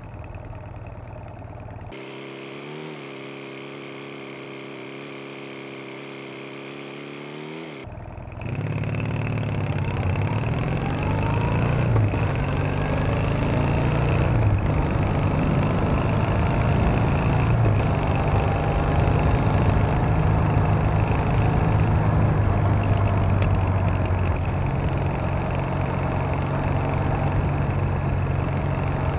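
Triumph Bonneville parallel-twin motorcycle engine running on the road. The first eight seconds are quieter, with a steady hum; then it gets suddenly louder and revs up and down through the gears before settling to a steady run.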